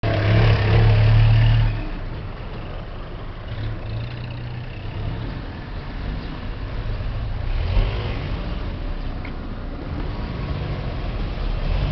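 A road vehicle's engine running close by, loud for the first two seconds and then dropping away to a steady background of traffic noise.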